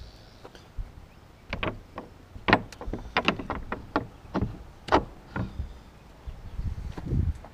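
Wooden chicken-coop door and its hardware being handled: a quick run of sharp knocks and clicks, then a few duller thumps near the end.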